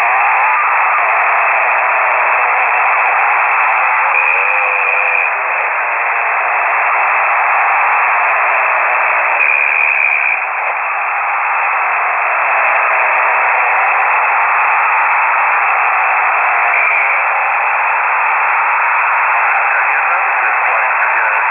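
Shortwave radio static heard through a KiwiSDR web receiver: a steady, narrow-band hiss with a few brief faint whistles.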